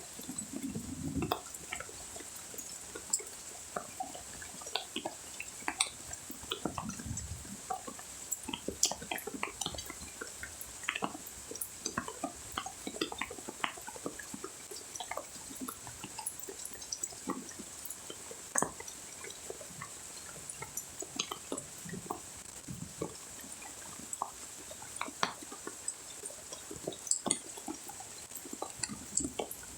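Rain dripping, with many irregular single drops ticking and splashing over a faint steady patter. A thin, high, steady tone runs underneath, and there are a few short low rumbles near the start and about seven seconds in.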